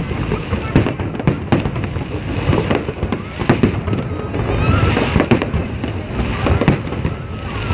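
Fireworks display going off close by: many sharp bangs and pops in rapid, irregular succession, over a constant rumble of the show.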